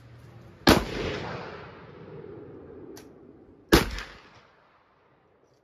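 Two shots from a Rossi R92 lever-action rifle in .454 Casull, about three seconds apart, each followed by a long echoing tail.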